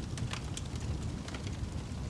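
Wood fire crackling in a fireplace: irregular sharp pops and snaps, several a second, over a low steady rumble.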